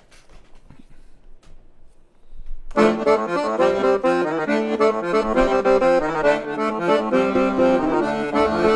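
A few faint clicks, then about three seconds in a recording of accordion music starts: sustained chords with a moving melody line on the accordion.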